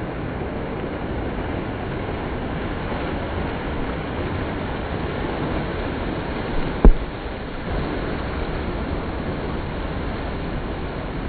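Steady rush of surf and wind at the shore, broken about seven seconds in by a small pop and then one sharp boom of a firework burst.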